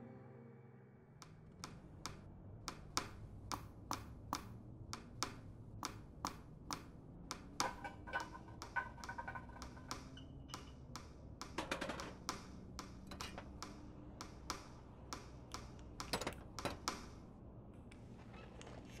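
Hand tools clicking and tapping on metal as a mechanic works, irregular sharp clicks a few a second over a low steady hum.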